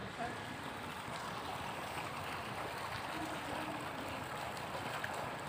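Swimming-pool water sloshing and trickling as children wade through it, a steady wash of water noise.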